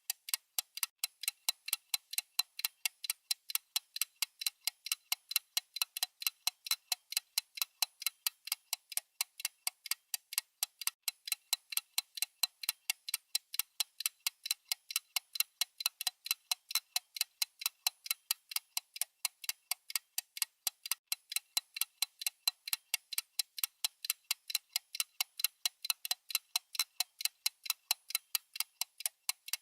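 Mechanical watch movement ticking steadily, several sharp, high ticks a second at an even beat.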